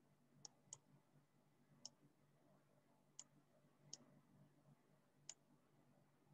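Six faint, sharp computer-mouse clicks at irregular intervals, as pages are moved through on screen, against near silence.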